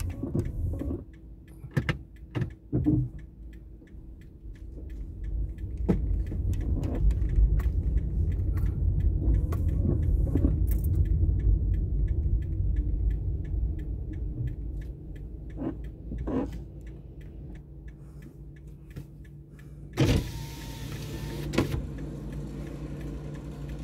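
Car cabin noise while driving: a low engine and road rumble that grows louder a few seconds in, then eases off, with scattered small rattles and clicks. Near the end comes a brief rush of hiss lasting about a second and a half.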